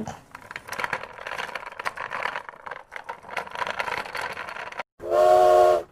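Skateboard wheels rolling over pavement, a rough rattling noise with small clicks, for nearly five seconds. It cuts off and a train horn starts, a steady chord of several tones.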